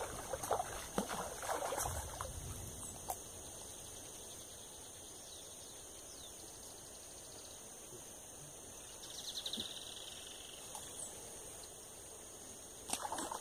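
Bursts of splashing and rustling in the first couple of seconds as a hooked traíra is worked in among bankside reeds. Quiet outdoor ambience with a faint steady hiss follows, then another short burst of knocks and rustles near the end.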